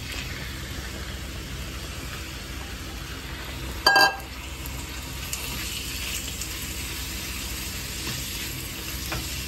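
Diced chicken and bacon sizzling as they start to fry in a stainless steel pan, stirred with a silicone spatula. A single sharp metallic clank about four seconds in.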